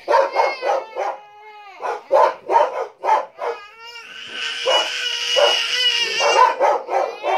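A dog giving quick, high yipping barks, about three a second, then a long drawn-out howl in the second half.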